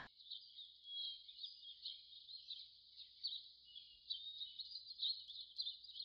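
Faint rainforest ambience: a dense, unbroken chorus of many small high chirps, with no single call standing out.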